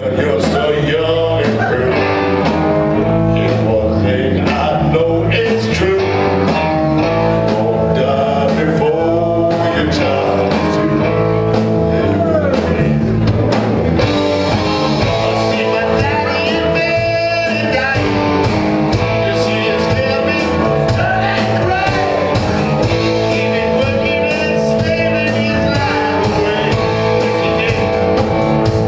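Live rock band playing: electric guitars and drum kit with a male lead singer, loud and continuous.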